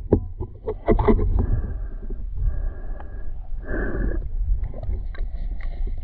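Muffled water sounds from a camera in a river: a steady low rumble with sloshing swells and a few short knocks about a second in.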